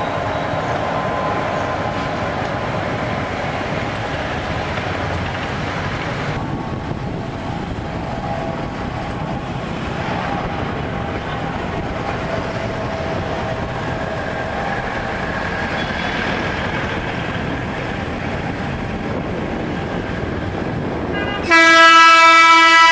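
Railbus running along street track amid road traffic, then the railbus horn sounding one loud, steady blast of just under two seconds near the end.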